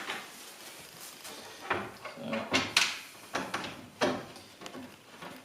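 Wooden cot parts and fittings being handled during hand assembly: a series of sharp knocks and clatters, about six, with some scraping in between.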